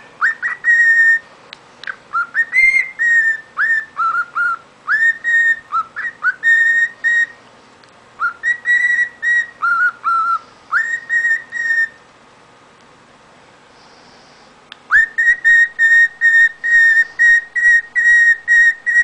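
Lutino cockatiel whistling a song of short, upward-swooping notes, with a pause of about three seconds midway. After the pause it whistles the same short note over and over, about three or four a second, a phrase stuck on repeat like a skipping record.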